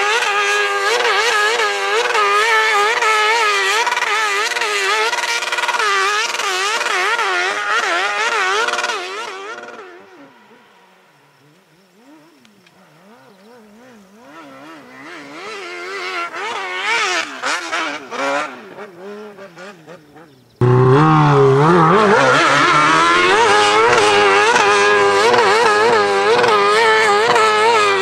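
High-powered hill-climb dirt bike engine revving hard on a steep climb, its pitch rising and falling quickly as the throttle is worked. About ten seconds in it fades to faint, builds back up, and about twenty seconds in it jumps abruptly to a much louder, closer engine revving.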